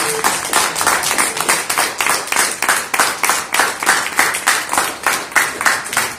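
Small audience applauding, the claps falling into a fairly even rhythm of about three to four a second.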